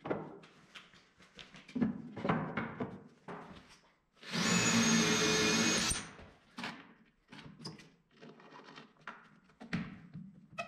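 Cordless drill running steadily for about two seconds, boring into a wooden slat of the cart, with a thin high whine over it. Before and after come short knocks and clicks of a bar clamp and wood being handled.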